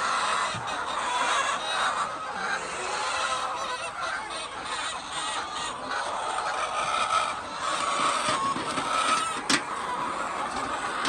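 A large flock of laying hens clucking and squawking all together in a continuous din, with one sharp click about nine and a half seconds in.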